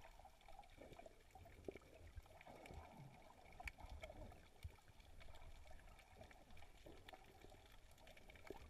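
Faint underwater ambience picked up by a submerged GoPro: a low rumble of moving water with scattered faint clicks and crackles.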